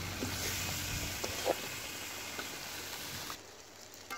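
Vegetables sizzling in an iron wok over a wood fire, a steady frying hiss with a few faint clicks, which drops off sharply about three seconds in.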